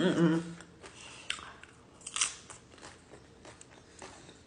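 Close-miked chewing with many short crisp crunches of a person eating nachos, tortilla chips cracking between the teeth.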